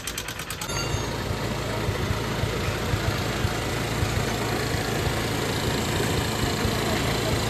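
Honda CB Trigger's 150 cc single-cylinder engine idling with an irregular knocking clatter, a very dangerous sound that comes from oil starvation: a jammed rocker and a seized piston. The engine sound comes in under a second in.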